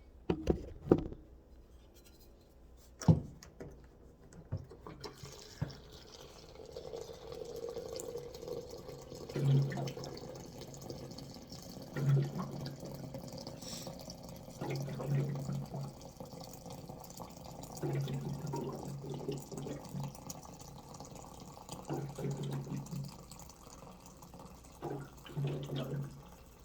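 Water poured from a jug in several short pours, after a few clicks as the jug is handled.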